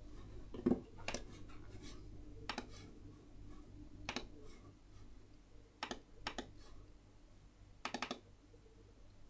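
Computer mouse buttons clicking a second or two apart, with a quick pair near six seconds and a rapid cluster near eight seconds, over a faint steady low hum.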